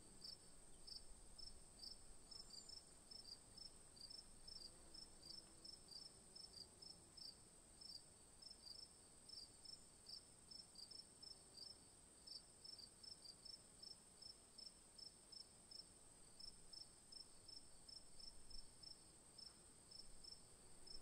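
Faint cricket chirping, about two to three short high chirps a second, over a steady faint high whine; otherwise near silence.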